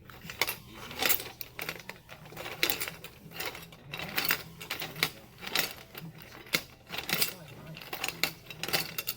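Rapid, irregular clinks and clicks of coins and metal parts being handled at a small candy vending machine, over a low steady hum.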